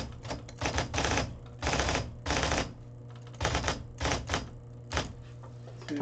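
IBM Correcting Selectric III electric typewriter typing: uneven clusters of sharp clacks as the type ball strikes the paper, with two longer mechanical runs about two seconds in, over a steady low hum.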